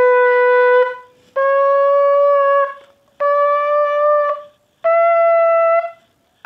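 Bukkehorn, a goat-horn trumpet with four finger holes, blown with buzzing lips: four held notes with short breaks between them, each a little higher than the last as the finger holes are opened.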